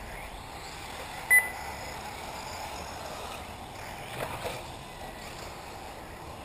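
Steady outdoor noise of 1/8-scale electric RC buggies running on an off-road track. A single short, high electronic beep comes about a second in and is the loudest sound, and a brief clatter follows a little after four seconds.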